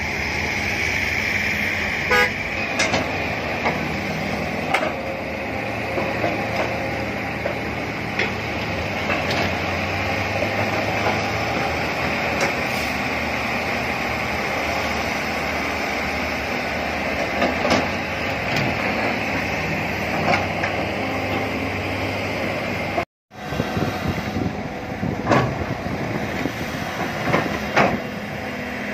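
Excavator diesel engine running steadily under load with hydraulic whine, and scattered knocks as the bucket works and soil drops into a dump truck's bed. The sound cuts out for a moment about 23 seconds in, then a second excavator is heard working with more knocks.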